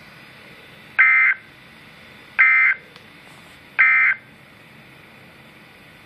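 Emergency Alert System end-of-message signal from a NOAA Weather Radio receiver's speaker: three short, identical bursts of digital data tone about a second and a half apart, marking the end of the broadcast alert.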